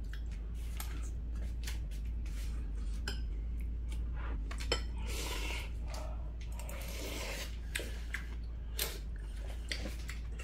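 Metal spoon and chopsticks clicking and clinking against ceramic bowls while eating, with two short stretches of soup being slurped off the spoon, about five and seven seconds in. A steady low hum runs underneath.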